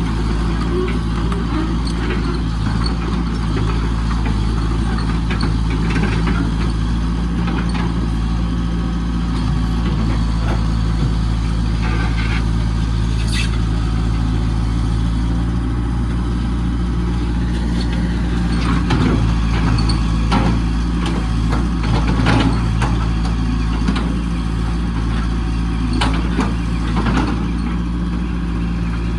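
Komatsu PC78-5 mini excavator's diesel engine running steadily, with scattered sharp metallic clanks and knocks from the machine; the engine gets a little louder for several seconds past the middle.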